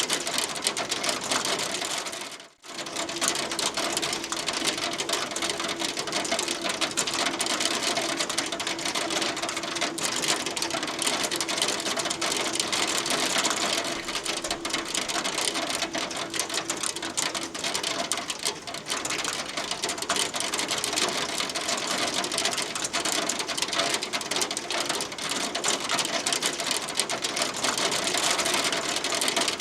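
Hail falling steadily with rain, a dense rapid ticking of hailstones striking. The sound drops out briefly about two and a half seconds in, then carries on.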